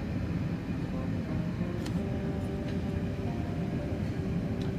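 Steady low rumble of airflow and engines inside the cabin of an Airbus A380 in flight, heard from a window seat over the wing during the descent. There are a few faint steady tones above the rumble.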